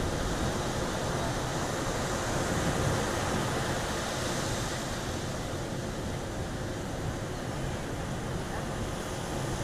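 Ocean surf breaking and washing up the beach in a steady roar, with wind buffeting the microphone.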